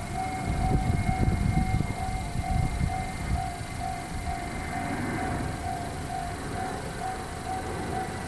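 Japanese level crossing's warning bell ringing in a steady, evenly repeated single tone, with the low rumble of a train passing over the crossing from about half a second in until about three and a half seconds in.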